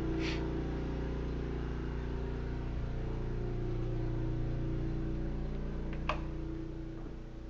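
Briggs & Stratton portable generator engine running steadily, a constant hum heard from indoors through the bedroom window, growing fainter near the end. A single sharp click about six seconds in.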